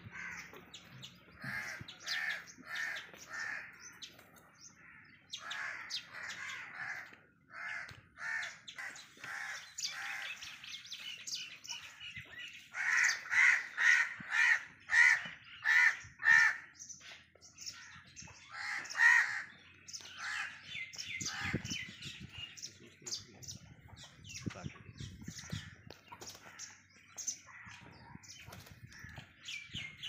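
Birds calling over and over: a long run of repeated harsh calls at about two a second, loudest about halfway through, with lighter chirping throughout.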